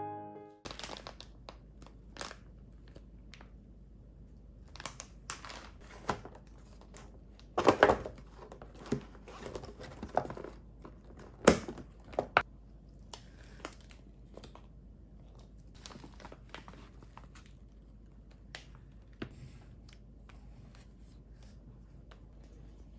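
Groceries being unpacked from a delivery box: plastic packaging crinkling and rustling, with small knocks as items are set down on a wooden table. The loudest rustles come about eight and eleven and a half seconds in.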